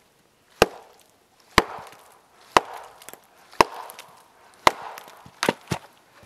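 Small axe splitting dry, partly rotten firewood on a stump chopping block: sharp wooden chops about once a second, then three quicker blows near the end.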